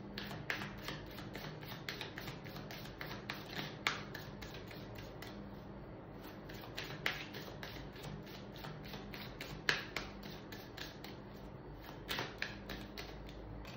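Tarot cards being shuffled by hand: a quick run of crisp card taps and clicks, about three or four a second, with a few louder slaps, over a faint steady hum.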